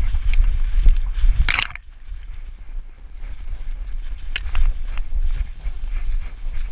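Wind buffeting and movement rumble on a camera strapped to a running dog's back, with dry fallen leaves crunching and rustling under her paws. About two seconds in the rumble drops away, leaving scattered crackles and clicks of leaves and twigs as she slows and noses through the leaf litter.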